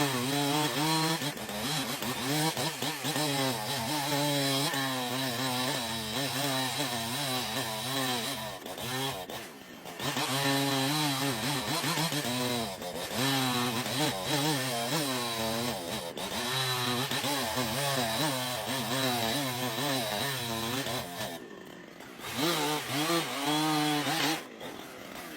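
Two-stroke chainsaw running under load, its engine pitch rising and falling as the chain bites into and eases out of the wood, with three brief breaks in the sound.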